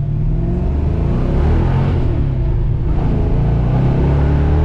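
Ford Fox-body Mustang 5.0 V8 accelerating on the road: the engine note rises, drops about two seconds in, then rises again. It is running on all eight cylinders, now that a stuck fuel injector has been freed with a few taps.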